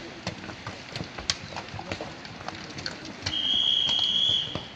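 Scattered sharp knocks and clicks of small stones clattering down a loose landslide slope. A little over three seconds in, one long high whistle blast sounds for about a second.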